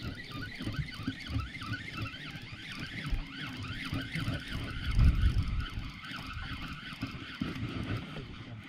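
Spinning reel being cranked: a whirring whine that rises and falls in pitch with each turn of the handle, several times a second, over a low rumble. A louder low thump comes about five seconds in.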